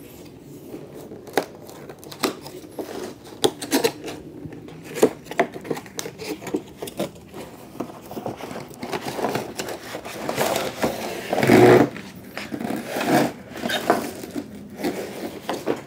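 A large cardboard box being opened by hand: the flap pulled up and taped seams torn, with a string of cardboard scrapes, rustles and knocks. About three-quarters of the way through comes a louder, longer scrape as the flexible solar panel is slid out of the box.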